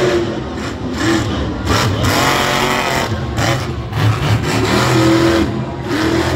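Monster truck engine revving hard, its pitch climbing and falling again and again.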